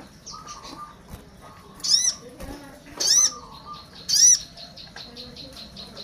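Olive-backed sunbird (sogon) giving loud, sharp, high-pitched calls, three of them about a second apart, then a quick faint twittering near the end: it is calling to its companions.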